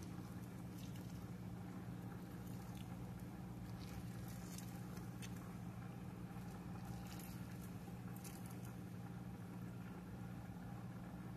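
Faint squishing of lemon halves squeezed by hand, with juice and pulp dropping onto shredded lettuce as scattered soft ticks, over a steady low hum.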